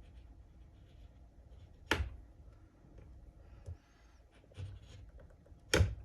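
A scoring knife drawn along the edge of a template across a plastic window sheet. There are two sharp, loud strokes, about two seconds in and near the end, with fainter short scrapes between them, cutting the groove the sheet will be snapped along.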